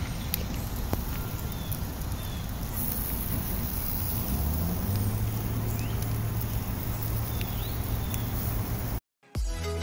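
Outdoor ambience with wind noise on the microphone, a few faint high chirps, and a low steady hum that joins about halfway through. It cuts off abruptly near the end, and electronic music starts.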